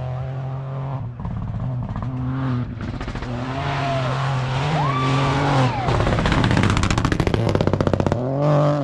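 Rally car engine running hard on a special stage, its note rising and falling with a brief tyre squeal near the middle. The engine gets louder and pulses rapidly for the last few seconds as the car comes close.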